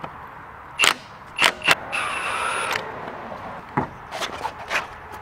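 Cordless impact wrench spinning lug nuts off a wheel: a few sharp clicks, then a short steady run of the wrench lasting under a second about two seconds in. Knocks and clatter follow near the end as the wheel is pulled off the hub.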